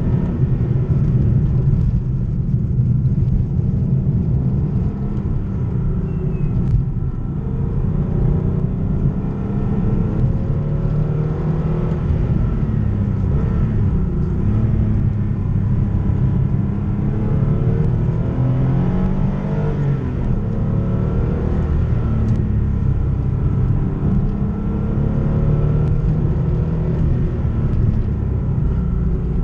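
Porsche 911 964 Carrera 2's air-cooled 3.6-litre flat-six heard from on board while driving, its pitch climbing and dropping several times as it revs up and eases off.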